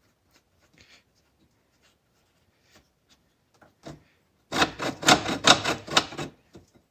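Small metal hardware and hand tools being handled during a door-latch install. There are faint scattered ticks, then a little past the middle about two seconds of rapid, loud clicking and rattling.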